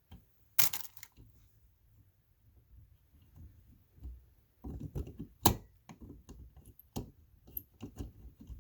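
Irregular clicks, knocks and scrapes of a flathead screwdriver turning out an electrical outlet's long mounting screw, with the outlet rattling in its box. A sharp knock comes a little over half a second in, and a cluster of louder knocks follows about halfway through.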